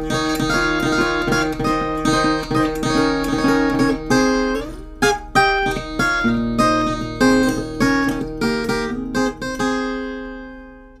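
Background music: an acoustic guitar playing plucked notes and strummed chords, ending on a last chord that rings out and fades away.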